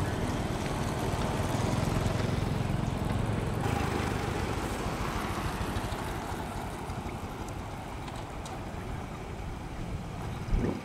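Motor vehicle engine running, a low rumble that is loudest about two seconds in and then fades gradually.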